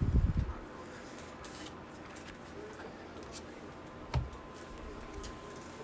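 Trading cards and packs being handled on a table: faint rustling, sliding and small clicks, with a soft low thump at the start and another about four seconds in.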